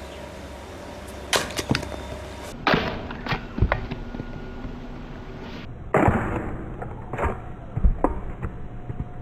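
A brick coming down on a chrome trumpet horn resting on another brick: sharp knocks and metallic clatter as the horn is struck and knocked about. The hits come in three groups, two about a second in, several more around three seconds, and a last run from about six to eight seconds.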